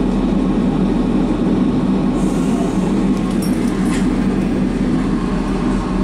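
Docklands Light Railway train running, heard from inside the car: a steady rumble of wheels and motors, with a brief high hiss about two seconds in and a few sharp clicks a little later as the wheels cross the points.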